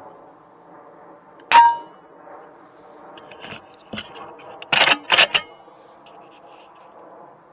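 A sub-12 ft-lb AGT Uragan 2 air rifle shot about a second and a half in, with a metallic ring after it, then a few sharp metallic clicks and clatters, two louder ones close together near the end. A steady hum runs underneath.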